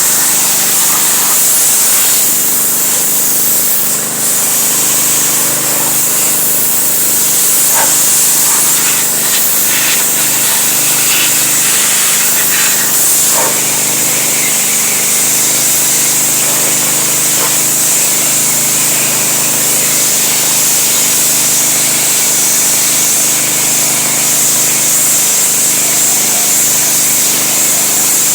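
A motor running steadily with a loud, even hiss like a spray, with a few faint knocks.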